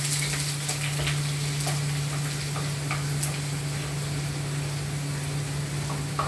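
Sliced onions sizzling in hot oil in a pan, a steady frying hiss with a few light clicks.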